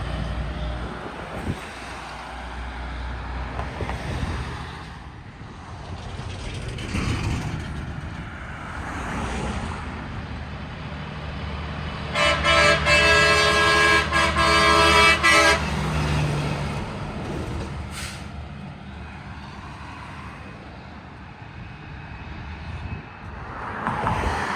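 Road traffic with trucks passing; about twelve seconds in, a loud multi-tone train horn sounds in several short blasts over about three seconds.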